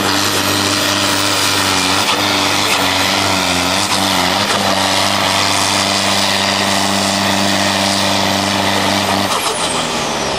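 A tractor's diesel engine running flat out under heavy load as it drags a weight-transfer pulling sled, with black smoke from the stack. The engine holds a loud, steady note that wavers briefly a few seconds in, and about nine seconds in the note drops away as the pull ends.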